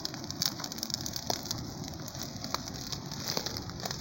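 Bonfire burning, crackling with irregular sharp pops over a steady rushing hiss.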